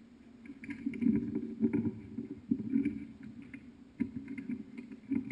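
Handling noise from a microphone as it is picked up and moved: irregular rubbing, bumps and light knocks.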